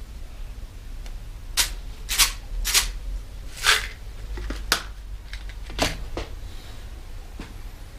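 A run of about seven short, sharp rustling snaps at uneven intervals: handling noise from work on a bicycle's wiring and small parts, over a low steady hum.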